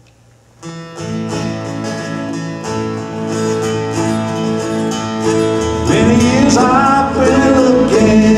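Country-gospel band music: acoustic guitars and mandolin playing a plucked intro that starts about half a second in. It grows fuller and louder about six seconds in.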